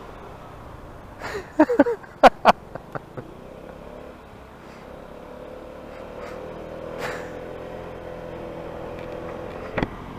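125cc motorcycle engine running steadily while riding, heard through a helmet microphone. A cluster of sharp knocks and pops comes a little over a second in, and one more near the end.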